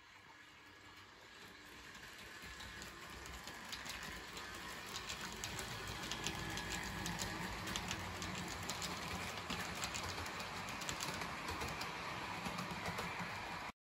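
Model electric train running past on the layout's track: the running noise and wheel clicks over rail joints grow louder as it approaches, then hold steady as the coaches roll by. The sound cuts off suddenly near the end.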